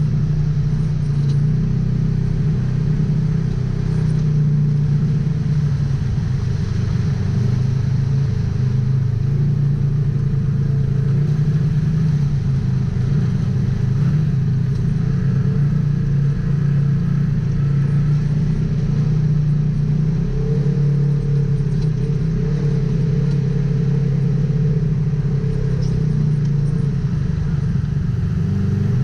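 Polaris RZR XP 1000 side-by-side's twin-cylinder engine running steadily while driving off-road, its note wavering up and down a little.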